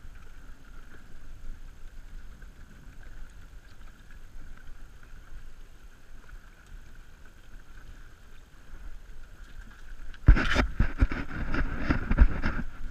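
Low, steady background noise aboard a drifting open fishing boat, then about ten seconds in a couple of seconds of loud rustling and knocking close to the microphone as gear is handled on deck.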